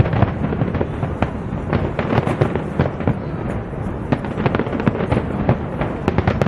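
Fireworks display going off: a dense, irregular run of crackles and bangs, several a second, over a continuous low rumble.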